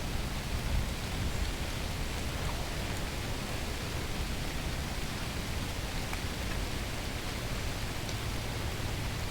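Steady weather ambience: an even rushing noise with a deep rumble underneath and a few faint ticks, in the manner of rain.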